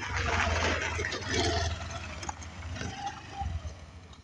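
Motor scooter engine running as the scooter rides past close by and away, loudest in the first couple of seconds and fading toward the end.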